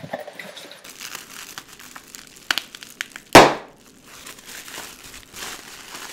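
Air-filled plastic packing crinkling as it is squeezed in the hands, then bursting with one loud pop about halfway through.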